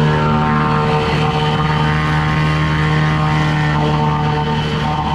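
Boat engine running loud and steady while the boat is under way, a constant low hum with no change in pitch.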